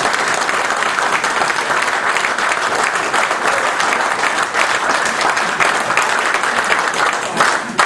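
Audience of seated diners applauding at the end of a male voice choir's song, a dense crowd of hand claps that thins out near the end.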